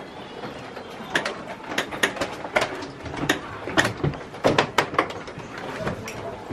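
Footsteps and knocks of several people walking through a helicopter's metal cabin: irregular sharp clanks, a few a second.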